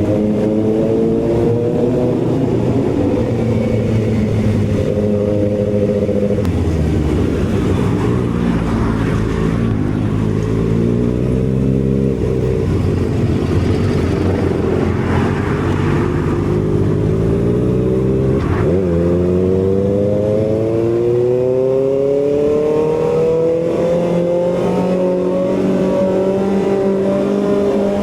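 Kawasaki ZX-6R's inline-four engine running hard under way, its pitch rising and falling as the revs change through the gears. About two-thirds of the way in there is a quick break in pitch, then a long climb in revs.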